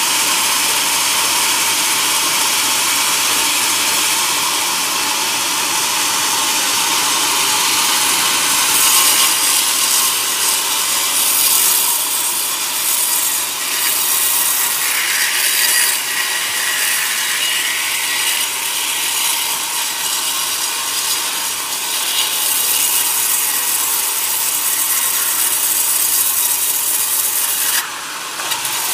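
Log band saw mill ripping a coconut log lengthwise: a steady, noisy cutting sound of the blade running through the wood, louder in the middle of the cut, with a sudden drop in level near the end.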